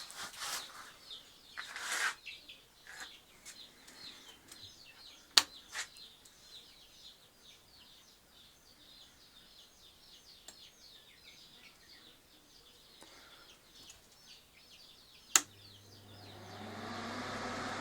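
A brood of chicks peeping, many short high chirps overlapping. There are two sharp clicks, about five and fifteen seconds in; after the second, a steady motor hum starts and grows louder toward the end.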